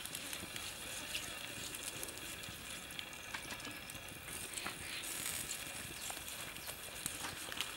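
Beef steaks sizzling on a wire grill rack over a wood-ember fire: a steady hiss dotted with many small crackles.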